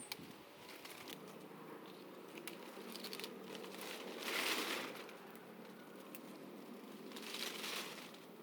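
Faint rustling and crinkling that swells twice, with a few light clicks.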